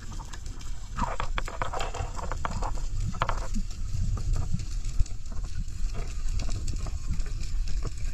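Underwater sound picked up through a camera's housing: a steady low rumble of moving water with scattered clicks and knocks, and a sharp knock about five seconds in.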